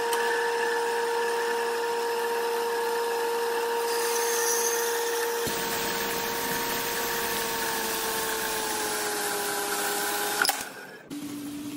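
Horizontal metal-cutting bandsaw running with coolant, its blade cutting through steel plate: a steady whine that sags slightly in pitch towards the end, then stops with a click about ten and a half seconds in.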